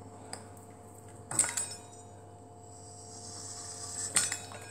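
Metal kitchen utensils clink and clatter against a wooden worktop. There is a small click early, a loud clatter about a second and a half in, and another cluster of clinks near the end, all over a faint steady hum.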